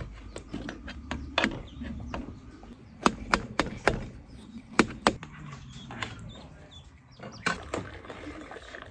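A series of sharp clicks and knocks, about ten of them at uneven spacing, most crowded together between three and five seconds in.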